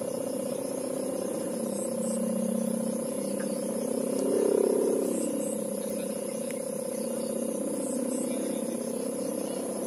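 Kite hummer (sowangan) giving a steady droning tone, over a lower wavering hum that swells about four and a half seconds in.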